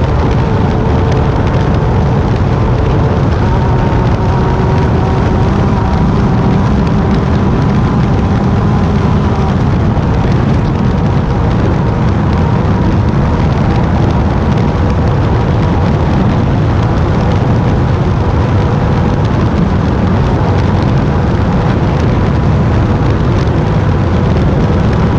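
Class 10 off-road race car running at speed, its engine note sitting faintly under a loud, constant low rumble.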